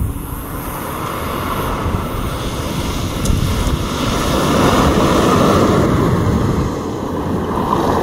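Toyota rallycross car running hard as it drives past on a loose dirt course, engine and tyres on dirt making a steady noisy rumble that builds to its loudest about five seconds in, then eases.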